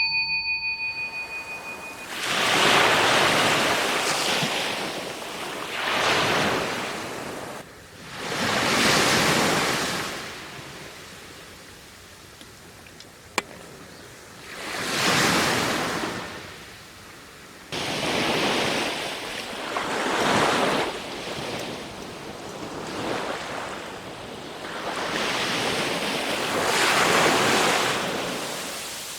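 Waves breaking on a beach, each surge of surf swelling and falling away every few seconds.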